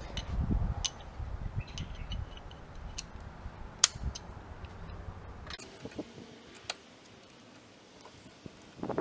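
Steel hand tools clinking and clicking as a breaker bar and socket are handled and fitted onto a car's pulley bolt, with a few low knocks early on and one sharp metallic click a little before halfway. A loud rush of noise starts at the very end.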